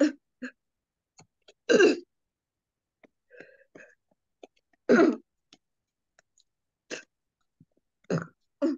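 A woman making short, loud throat sounds, belching and clearing her throat, about six times at irregular gaps, heard over a video call. They are her reactions to the ruqyah recitation.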